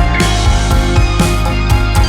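Background music with a steady beat, rock-style with guitar.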